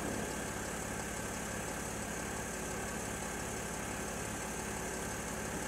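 Steady mechanical hum of a Mercedes GL X164 idling with its Airmatic air-suspension compressor running, refilling an air system that had been emptied so as to raise the car to normal ride height.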